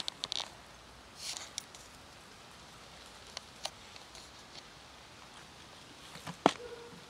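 Handling of a lidded plastic food container on dirt ground: scattered light rustles and clicks, a couple of small ticks midway, and one sharp click near the end as a hand works the lid.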